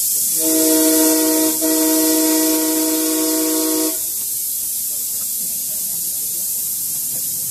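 Chime whistle of a miniature-gauge American-style Mikado steam locomotive, sounding a chord of several notes in two blasts with a brief break between them, the second the longer. A steady hiss of steam runs underneath and carries on after the whistle stops.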